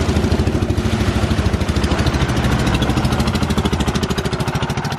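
Small river boat's engine running with a fast, even beat, easing off slightly near the end.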